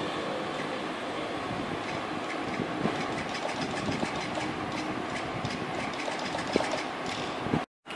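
Modded 1:20 scale toy-grade RC car running, a steady noisy rattle from its motor and wheels with scattered small clicks and knocks; the sound cuts off suddenly near the end.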